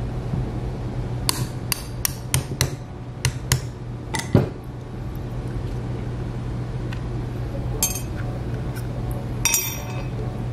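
Quick run of light, sharp metal taps, about eight in two seconds, then one heavier knock: a small punch being tapped to drive a pin out of a Smith & Wesson M&P 2.0 pistol frame. Two brief metallic rattles follow later.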